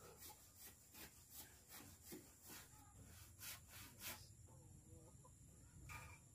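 Faint rhythmic strokes of a handsaw cutting timber, about two to three a second, stopping about four seconds in; a single knock comes near the end.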